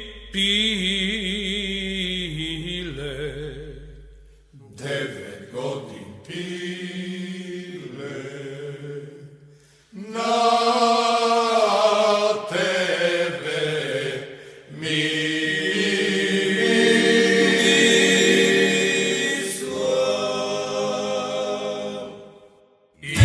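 Men's chorus singing a Macedonian folk song in long held, drawn-out phrases with a tamburica orchestra, each phrase ending in a short pause about every five seconds.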